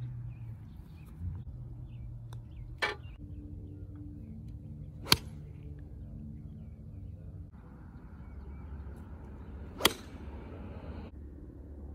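Golf club striking a ball on two full swings: two sharp cracks about five seconds apart, the first one the loudest. A softer, smeared knock comes about three seconds in.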